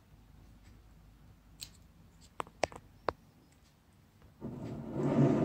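Small scissors snipping Fittonia stems: a few short, sharp snips in the middle, then a longer, louder scraping rustle near the end.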